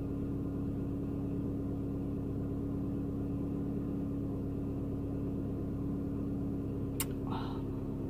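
Car engine idling, a steady low hum heard from inside the cabin, with a single sharp click about seven seconds in.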